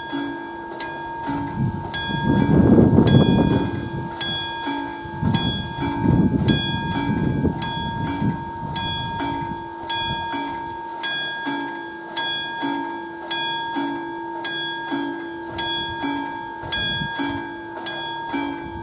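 Level-crossing warning bell (a classic electric striker bell) ringing with steady, regular strokes while the crossing is closed for an approaching train. A louder rushing noise swells twice in the first half.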